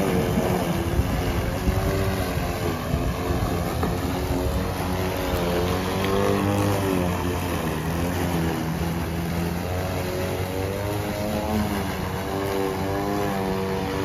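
Greenworks corded electric lawn mower running while it cuts tall grass, a steady motor hum whose pitch repeatedly dips and recovers as the blade meets thicker patches of grass.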